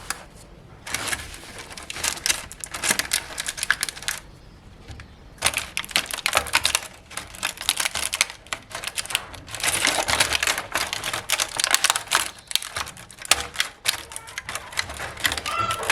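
Small plastic toy pieces and packaging being handled, giving rapid clicking and crinkling in bursts of a few seconds with short pauses between.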